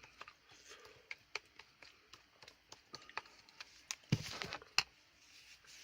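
Quiet chewing of a tough, chewy chili: scattered wet mouth clicks and smacks, with a short breathy noise about four seconds in.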